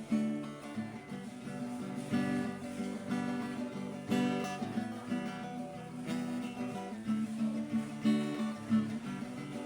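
Acoustic guitar strumming slow chords, a new chord struck about every two seconds, as the instrumental intro to a worship song.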